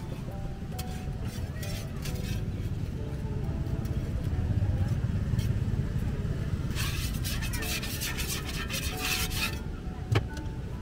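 A steady low rumble of wind and traffic with faint music under it. About seven seconds in, a couple of seconds of scraping on a hot griddle as khanom bueng shells are worked, then a sharp tap near the end.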